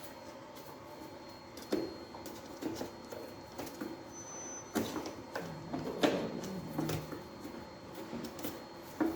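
Parts of an Aero 15 vacuum cleaner being handled and fitted back into place: scattered clicks and knocks, the loudest about six seconds in.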